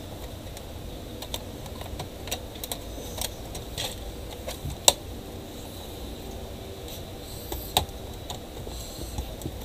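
Scattered sharp plastic clicks and taps as hands press a laptop's plastic bottom case around its edges, snapping its clips into place. One click about halfway through and another a few seconds later stand out from the rest.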